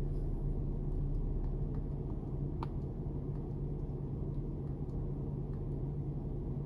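The 3.2-litre V6 of a 2003 Acura TL Type S idling warm at about 700 rpm, a steady, even low hum heard from inside the cabin.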